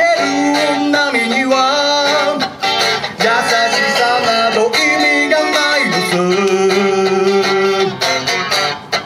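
A man singing a song while playing an electric guitar, holding long notes, one of them for about two seconds near the end.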